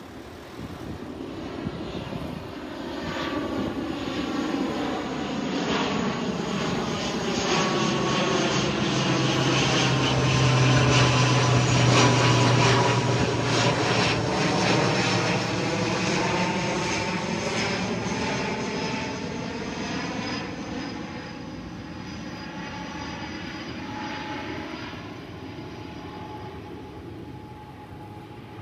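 Airliner flying past on its approach to land. The engine noise swells to a loud peak about eleven seconds in, then slowly fades, with a steady whine and a sweeping, phasing rush as it goes by.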